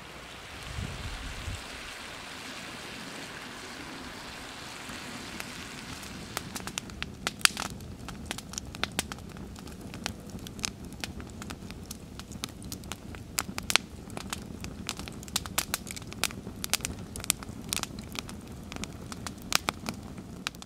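Open wood fire under a pan of simmering stroganoff sauce, crackling with sharp pops that come thick and fast from about six seconds in, over a steady hiss. A low bump about a second in.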